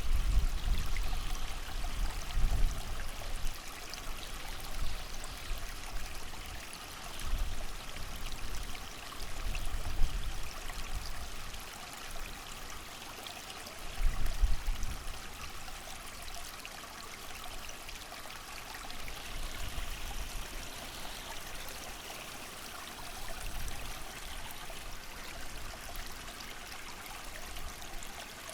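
Creek water running steadily, with gusts of wind rumbling low several times in the first half.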